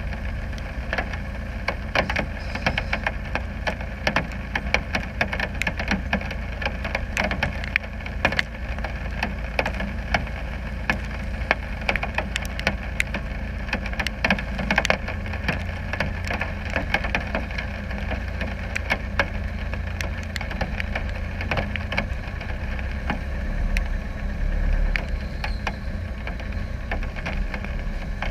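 Land Rover Discovery 300Tdi's 2.5-litre four-cylinder turbodiesel running with a steady low rumble, under a constant scatter of sharp clicks from raindrops hitting the camera housing. Near the end the engine rumble grows louder as the truck drives off through the mud.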